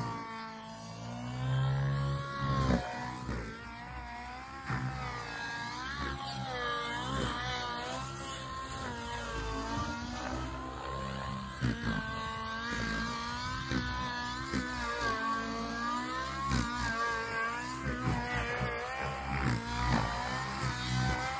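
Goblin RAW700 nitro RC helicopter in aerobatic flight: its nitro engine and rotors running hard, the engine note rising and falling continually as the manoeuvres load and unload the rotor.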